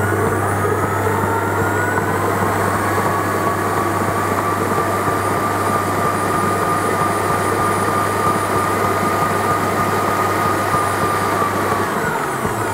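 Electric stand mixer running, its beater mixing thick cake batter. The motor whine rises in pitch over the first few seconds as it comes up to speed, holds steady, then winds down and stops near the end.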